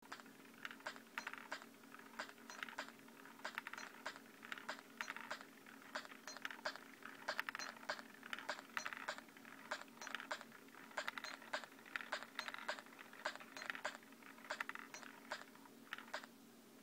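Mini rhythm machine built from LEGO: pegs on rotating shafts tap piezo sensors, which fire short sampled hits from an ATtiny861A microcontroller through a small speaker. It plays a quiet, clicky rhythm of interlocking patterns, several hits a second, that stops just after 16 seconds in. A steady low hum sits underneath.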